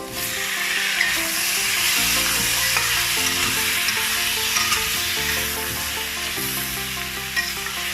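Sweet potato and tomatoes sizzling loudly in a hot oiled pan as they are stirred, the sizzle jumping up sharply at the start. Steady background music plays underneath.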